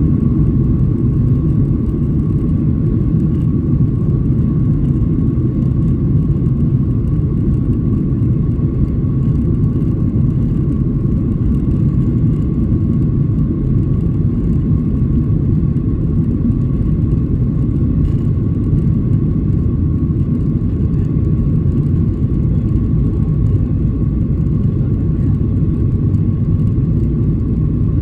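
Cabin noise of a Boeing 737-900 taxiing on its CFM56 turbofans at low power: a steady low rumble with a thin, steady whine above it.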